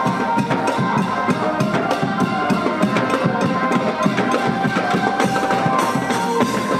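Lively music with fast, steady drum and percussion strokes under a sustained melodic line.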